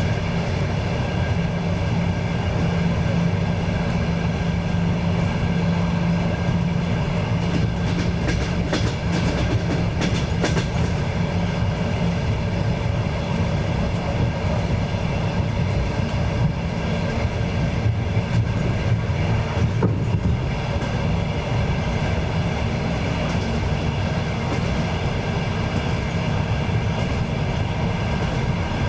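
Moving train heard from aboard: a steady rumble of wheels on rails with the clatter of wheels over rail joints, the clacks sharpest in a cluster about a third of the way in.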